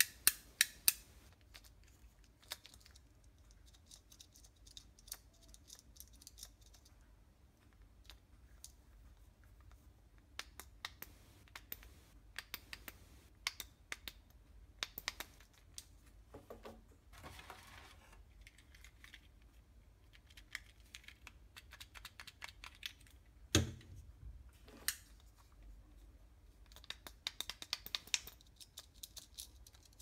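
Plastic Fidget Cube being worked by hand, its buttons and switches giving scattered small sharp clicks, with a quick run of clicks at the start and another near the end. A short rattling grind comes a little past halfway, and a single low knock about two-thirds through.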